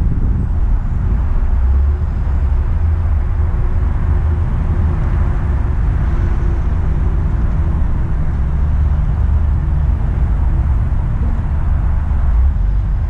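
Steady low rumble of a car driving slowly, with engine and road noise.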